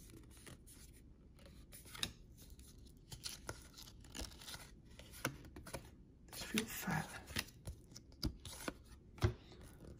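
Basketball trading cards being handled and flipped through by hand: faint scattered rustles and light clicks of card stock sliding against card, a little louder about two seconds in and again near the end.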